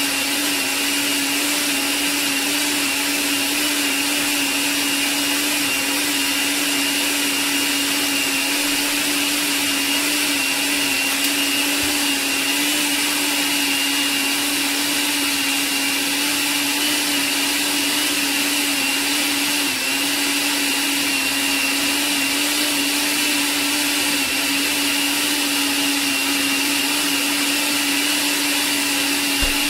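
Countertop blender's motor running steadily at one even pitch, blending a creamy drink in its glass jar.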